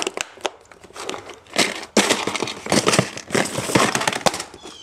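Clear plastic tackle utility box being pulled out of its slot and handled: a busy run of plastic clicks, knocks and rustling.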